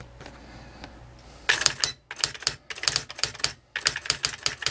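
Smith Corona Wordsmith 250 electronic typewriter printing: after a faint hum, rapid strikes start about a second and a half in and come in quick runs with short pauses between them.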